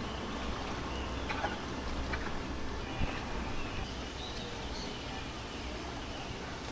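Outdoor ambience: a steady low rumble with scattered faint chirps and a single soft knock about three seconds in.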